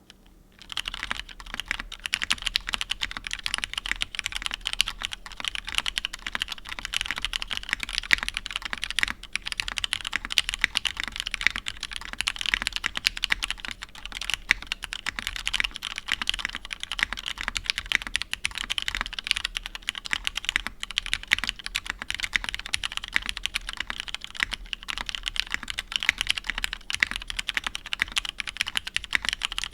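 Continuous fast typing on a mechanical keyboard with lubed Cherry Hyperglide Black linear switches in an aluminium plate, capped with OG Cherry doubleshot keycaps: a steady stream of keystroke clacks, starting about a second in.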